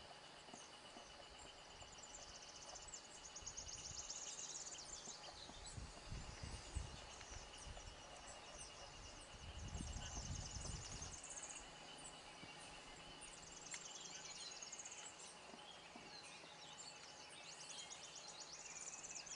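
Rainforest insects trilling and buzzing steadily, with a deep, low hoot from a long-wattled umbrellabird lasting about a second and a half, about ten seconds in.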